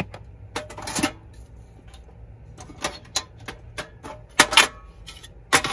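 Irregular metallic clicks and knocks as a Coleman butane canister is handled and fitted into the canister compartment of a portable butane camp stove, with the loudest knocks near the end.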